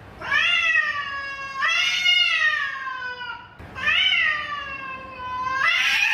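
Domestic cat meowing: four long, drawn-out meows back to back, each rising and then slowly falling in pitch.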